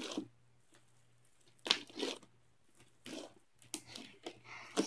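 Teal slime being kneaded and stretched by hand, giving short, irregular sticky crackling and tearing sounds a second or so apart.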